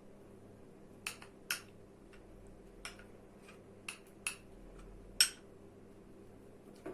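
A spoon clicking and clinking against a bowl while honey is spooned in: scattered light taps, with one sharper clink about five seconds in.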